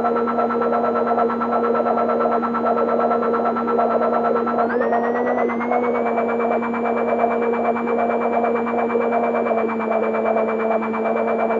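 Negistor Cracklebox drone generator played through a dual auto-filter: a steady, layered electronic drone over crackly noise, with a fluttering layer in the middle. About halfway through, the upper tone slides up in pitch and settles higher.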